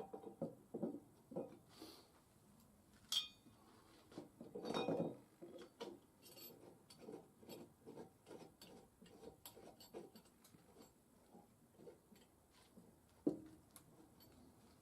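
Metal tools and parts being handled: scattered light clinks and knocks, a few sharper clicks, and a longer, louder scrape about five seconds in.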